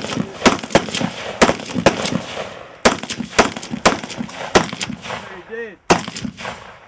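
Rifle shots fired in quick, irregular succession, about ten in all, each with a short ringing tail. A voice calls out briefly near the end.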